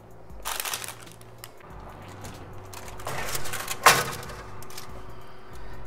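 Baking dish being slid onto a wire oven rack, with clattering of the rack and oven door and a sharp knock about four seconds in.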